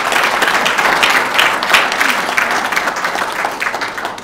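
Audience applauding, many hands clapping densely, fading away near the end.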